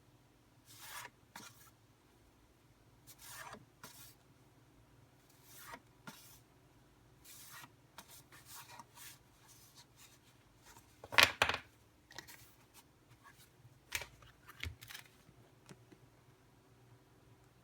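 Paper being handled in short rubbing, sliding strokes, about one every second or two, with a louder double knock about eleven seconds in.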